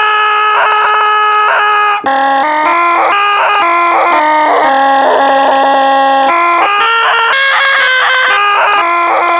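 A man's own recorded yell, loaded into Logic Pro's Quick Sampler and played back on a keyboard as a pitched instrument. One loud held note for about two seconds, then a melody of shorter notes stepping up and down, often several sounding at once as chords.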